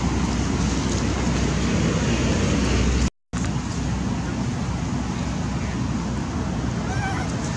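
Steady rumbling outdoor background noise, heaviest in the low end, breaking off to silence for an instant about three seconds in.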